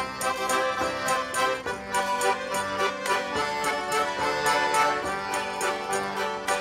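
Diatonic button accordion playing a traditional folk tune, a held low bass note under a running melody, with light percussive hits keeping a regular beat.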